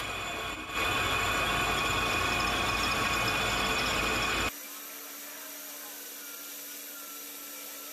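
A power tool running hard on metal, loud and dense, cutting off suddenly about four and a half seconds in. After that a quieter steady hum remains, with faint squeals.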